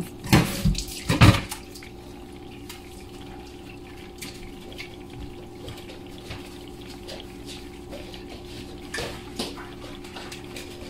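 A metal pot and lid clatter several times in the first second or so. Then comes a steady faint hiss with a low hum and a few light ticks, from the covered pot of crabs cooking on the stove.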